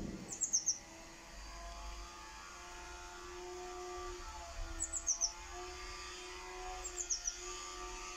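A small songbird singing a quick phrase of about four high descending chirps, three times, over a faint steady hum.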